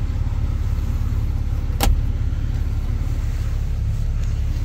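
2012 Ram 3500's 6.7-litre Cummins inline-six turbo diesel idling steadily, heard from inside the cab, with one sharp click a little under two seconds in.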